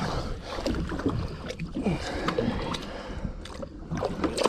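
Water sloshing against the hull of a small boat, with wind rumbling on the microphone. Scattered knocks and rustles of rope and gear being handled in the boat.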